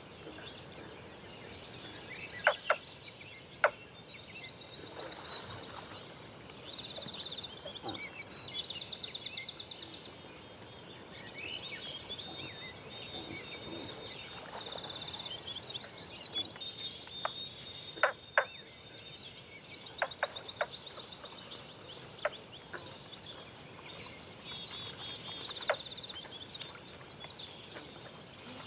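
Songbirds singing in a forest dawn chorus: repeated fast high trills and chirps from several birds, overlapping. A few sharp short clicks stand out, loudest about two seconds in and about eighteen seconds in.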